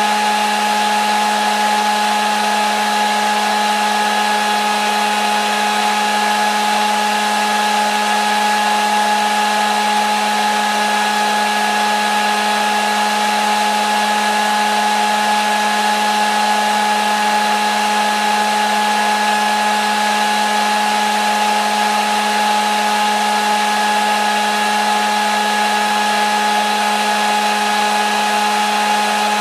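Hair dryer running continuously: an even rush of air with a steady motor hum and whine that never changes, used as white noise for baby sleep.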